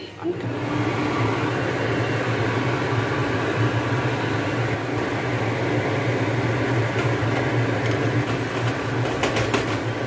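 Aloo paratha frying in ghee on a tawa over a gas burner: a steady hiss over a constant low hum, with a few light spatula scrapes and clicks near the end.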